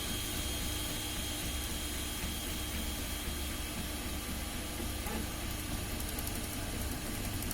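Flsun Cube 3D printer running a print: a steady whirring hum from its motors under a constant fan hiss.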